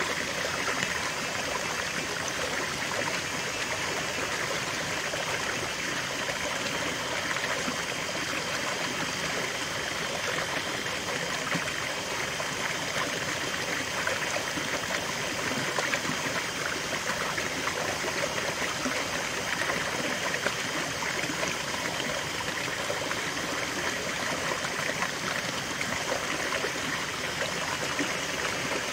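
Shallow rocky stream, water spilling over stones into a small pool: a steady babbling, trickling rush that does not change.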